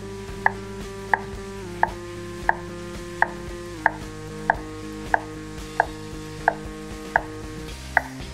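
Kitchen knife cutting down through a halved red onion onto a wooden cutting board: even, sharp taps about every two-thirds of a second, about twelve in all, over steady sustained tones that shift pitch a few times.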